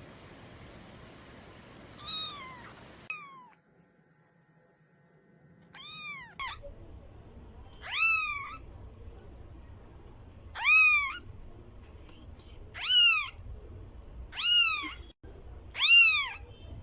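Kitten meowing over and over: high-pitched meows that rise and fall in pitch, two near the start, then after a short quiet gap six more about every two seconds.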